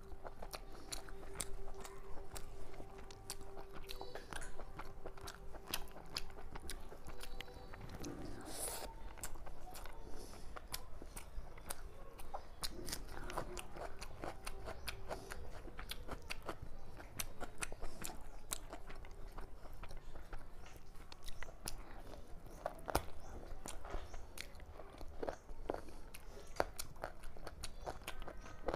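Close-up chewing and biting mouth sounds of a person eating fried rice and chicken by hand: a steady run of small wet clicks and smacks.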